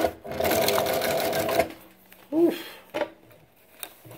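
New-Tech GC-0303 walking foot industrial sewing machine, driven by its servo motor at a low speed setting, stitching through quarter-inch-thick leather. It pauses briefly just after the start, runs on for about a second and a half, then stops.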